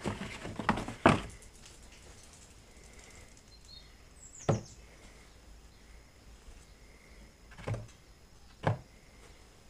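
Cardboard egg cartons rustling and knocking as they are taken off a shelf, then three soft, separate taps as eggs are set one at a time into a cardboard egg carton.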